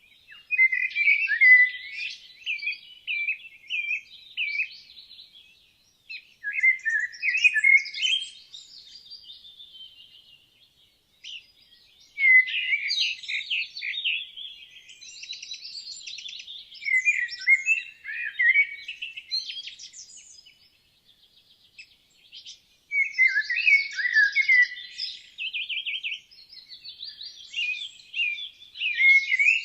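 Woodland songbirds singing in warbled phrases of two to four seconds, with pauses of about a second between them.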